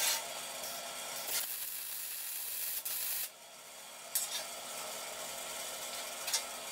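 MIG welding: the arc crackling and sizzling, stopping about three seconds in. A steady hiss with a couple of clicks follows as the torch is put down.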